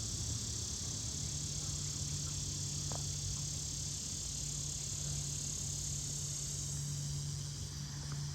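Cicadas calling in a steady, high-pitched hiss, over a low steady hum.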